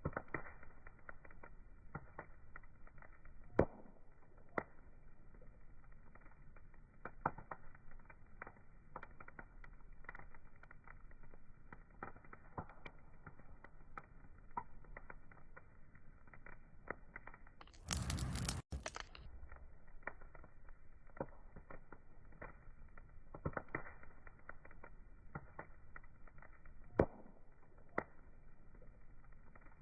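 Wood fire crackling, with irregular sharp pops and snaps over a faint background hiss. A few pops stand out louder, and about two-thirds of the way through a brief rush of noise lasts about a second and ends abruptly.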